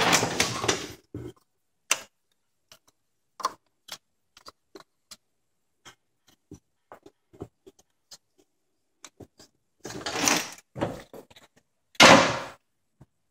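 Scattered clicks and knocks, like objects being handled, with three brief louder rustling or scraping bursts: one at the start, one about ten seconds in and one near the end.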